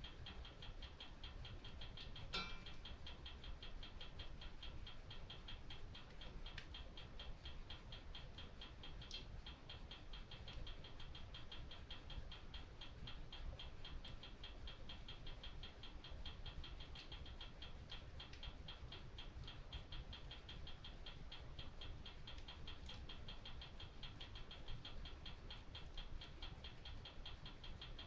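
Fire burning in a fireplace, crackling in a steady fast patter of small ticks, with a few sharper pops, the loudest about two seconds in.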